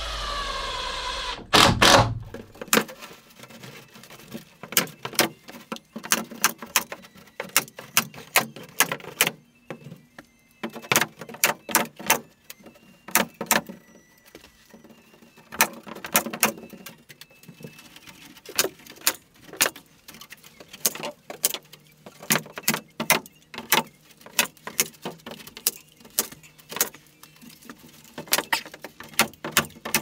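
Tool work: a motor winds down with a falling whine in the first couple of seconds. Then comes a long run of sharp, irregular metallic clicks and taps, often two or three in quick succession.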